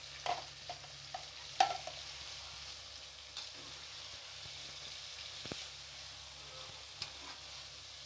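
Chicken pieces, tomatoes and spice powders sizzling in oil in a frying pan while a metal slotted spoon stirs them. Scattered scrapes and knocks of the spoon against the pan come over a steady sizzle; the loudest knock is about one and a half seconds in.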